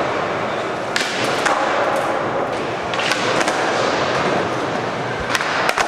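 Skateboard wheels rolling on a smooth concrete floor, broken by several sharp clacks of the board striking the floor as tricks are popped and landed.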